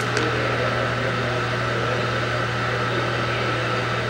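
Monarch 36NN heavy-pattern engine lathe running under power, its 25 HP main drive motor and geared headstock giving a steady low hum.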